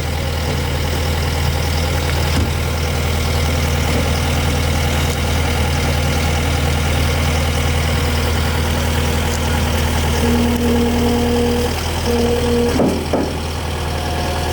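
Skid steer engine running steadily at idle. A steady higher-pitched whine comes in over it twice near the end.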